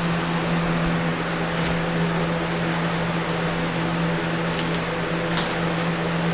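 A steady machine hum with a low tone, like a fan or small motor running, with a few faint clicks about five seconds in.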